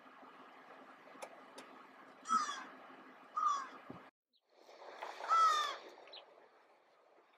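American crow calling: two short caws falling in pitch, then a longer caw about five seconds in. The sound drops out briefly just after four seconds in.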